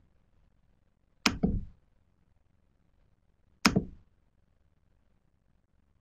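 Two short, sharp knocks or clicks about two and a half seconds apart. The first is a quick double hit.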